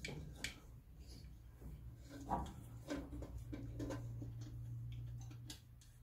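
Scattered light clicks and small knocks of a glow plug being unscrewed by hand from a Chinese diesel parking heater's aluminium combustion chamber, with a sharper knock a little over two seconds in.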